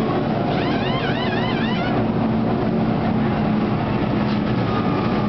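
V8 stock car engines running at low pace speed past pit road, a dense, steady engine rumble. From about half a second in, a high warbling whistle rises and falls for about a second and a half over it.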